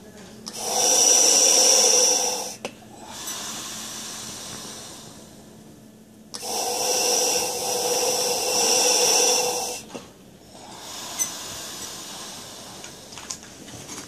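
Two long, deep inhalations through a gas-and-air (Entonox) demand valve, each drawing a loud, steady hiss, with quieter breathing out in between.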